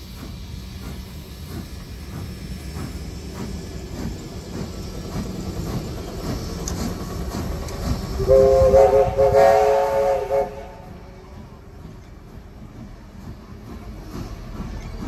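Heritage train hauled by C35-class steam locomotive 3526 rolling past, its wheels clicking over the rail joints about twice a second over a steady rumble. About eight seconds in, a train whistle of several notes sounding together blows loudly for about two seconds, then cuts off.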